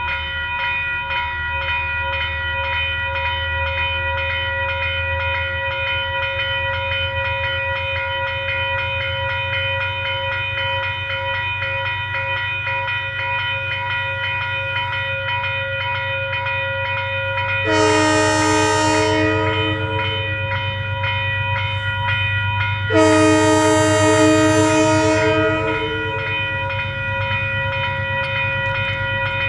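Diesel train running close by, with a low engine rumble and a steady high whine. Its horn sounds twice, a blast of about two seconds and then a longer one of about three seconds.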